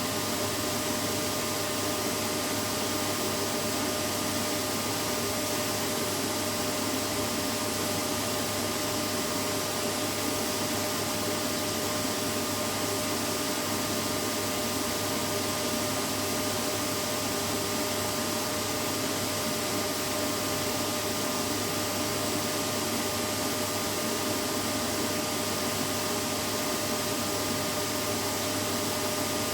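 Vacuum cleaner running steadily: an even rush of air with a steady motor whine, unchanging throughout.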